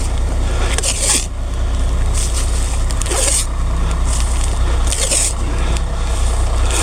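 A heavy engine runs steadily at a low hum, with about four short scraping rasps over it at uneven intervals.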